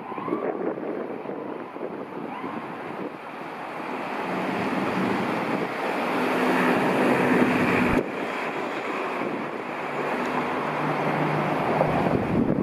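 Road vehicle noise with wind on the microphone: engine and tyre noise swells over several seconds, breaks off abruptly about eight seconds in, then carries on steadily.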